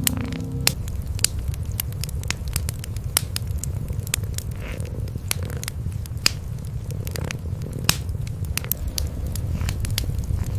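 Wood fire in a fireplace crackling with irregular sharp pops, over a steady low rumble of cats purring.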